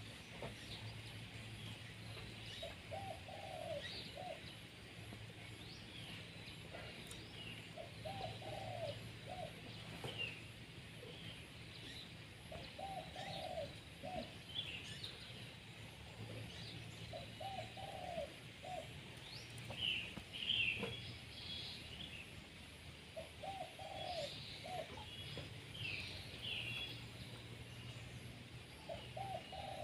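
A dove cooing a short phrase over and over, about every five seconds, while small birds chirp and tweet at a higher pitch, loudest around the middle. A faint low steady hum lies underneath.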